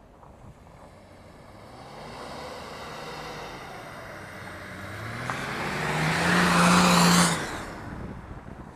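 BMW estate car drifting on snow and passing close by: its engine note climbs and is held high while a loud hiss of spinning tyres throwing snow builds, peaking about six to seven seconds in, then both fall away as it moves off.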